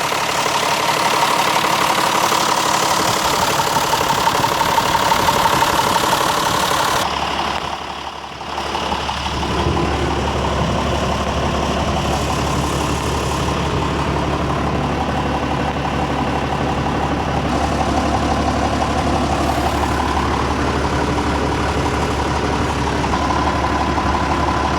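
John Deere 6605 farm tractor's diesel engine running at idle. About seven seconds in the sound changes abruptly: the hiss and clatter drop away, leaving a duller, steady idle with a strong low hum.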